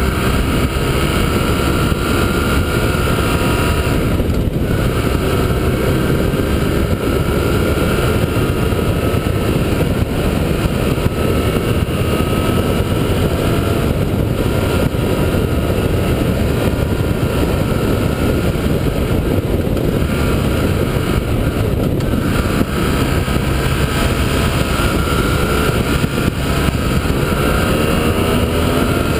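Motorcycle engine running under way, recorded from an onboard camera, under a dense steady rush of wind and road noise. The engine pitch rises and falls with the throttle, climbing near the end.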